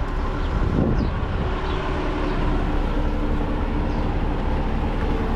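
Engine of a trackless road train, a truck-built park ride, running steadily: a low rumble with a steady hum that sets in about two seconds in.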